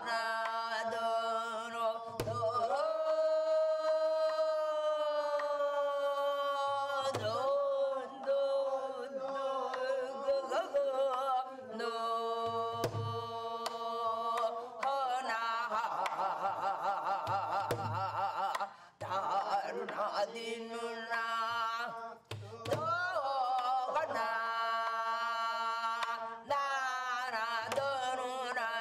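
Korean gueum (vocable) singing in long held, wavering notes, with a low drum struck every few seconds.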